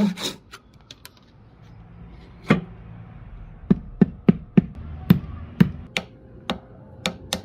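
A tool striking wood in a run of about a dozen sharp, irregular knocks, roughly two a second, after a last scraping saw or rasp stroke right at the start.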